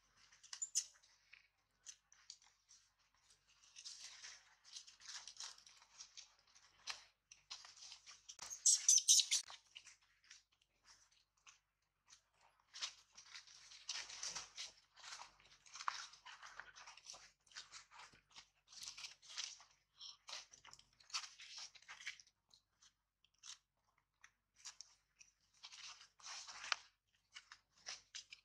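Dry leaf litter crackling and rustling in short, irregular bursts as macaques move about on it and handle the leaves, with the loudest flurry of crackles about nine seconds in.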